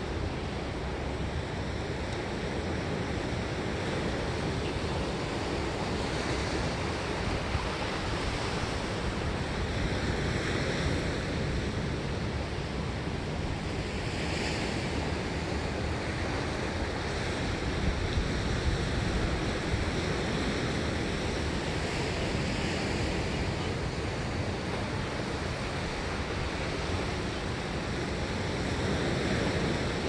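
Pacific Ocean surf: waves breaking and washing up the shore in a continuous rush that swells every four seconds or so, loudest a little past halfway.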